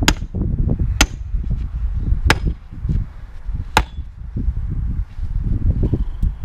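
Hammer striking a steel safe four times at uneven intervals, sharp metallic blows with a brief ring, as the safe is battered to break it open. Steady low rumbling noise runs underneath.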